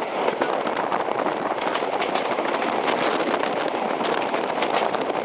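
Passenger train running at speed, heard from the carriage window: a steady rush of wheel and wind noise with a constant patter of small clicks and rattles from the wheels and the carriage.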